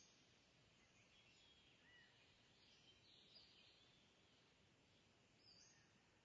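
Near silence: faint background hiss with a few faint, short, high bird chirps.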